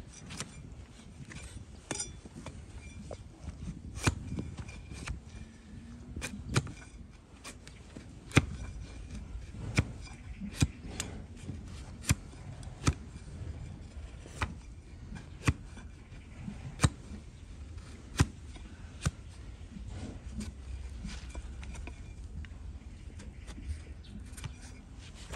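Flat hoof-paring knife shearing through a donkey's overgrown hoof horn held on a wooden block: a string of sharp, crisp cracks as slices of horn split off, many of them about a second apart.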